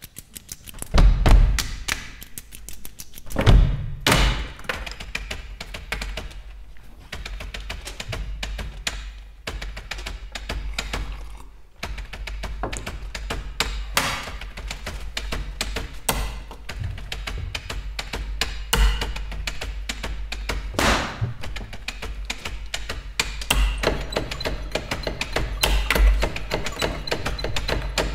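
Computer keyboards played as percussion instruments: many rapid, sharp clicks of typing in rhythm by several players, with a few louder thumps, the strongest about a second in and three to four seconds in.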